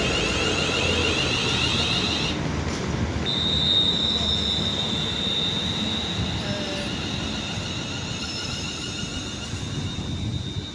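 West Midlands Railway Class 350 Desiro electric multiple unit moving at the platform, a low running rumble under a high whine. The whine shimmers at first, then settles into one steady high tone about three seconds in. The sound fades slowly toward the end.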